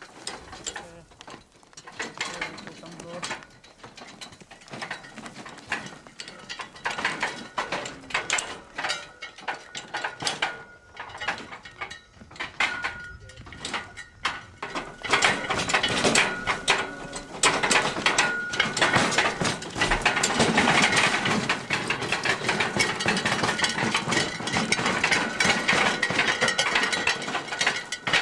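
Wooden cart on spoked wheels, drawn by a water buffalo, rattling and clattering along a rough dirt track, louder from about halfway through, with a thin high squeak at times.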